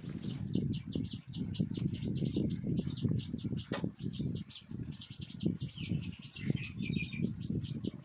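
Background music: a quick, steady jingle of sleigh bells, about five shakes a second, over a pulsing lower accompaniment.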